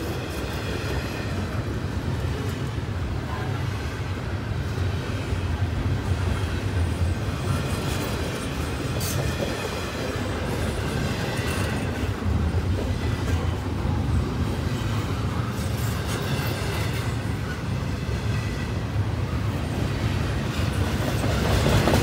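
Double-stack container cars of a freight train rolling past close by: a steady rumble of steel wheels on rail, with occasional clicks of wheels over rail joints.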